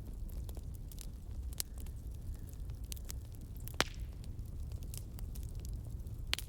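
A fire crackling, with irregular sharp pops and ticks over a low steady rumble; the loudest pop comes about four seconds in.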